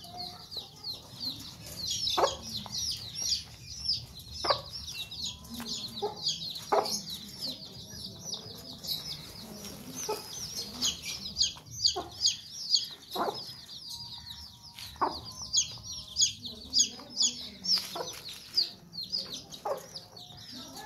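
A brood of chicks peeping without pause: many rapid, high, falling chirps. A Sussex mother hen clucks now and then with short, sharp sounds under the peeping.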